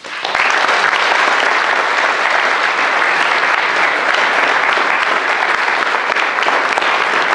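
Audience applauding: many hands clapping together, swelling up within the first half-second and then holding steady.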